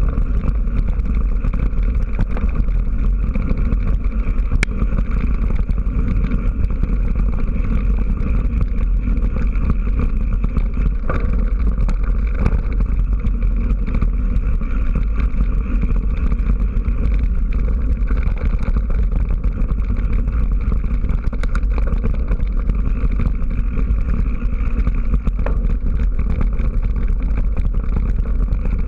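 Steady rumble of wind on the microphone and tyres on a dirt track, from an action camera carried by a rider on a mountain bike, with a few light rattles.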